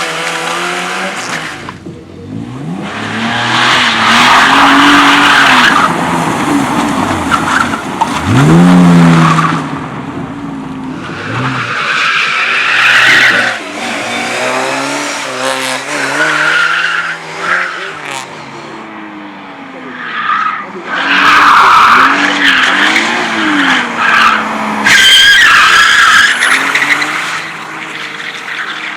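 A car drifting: its engine revving up and down again and again while the tyres squeal and skid in several loud screeching stretches.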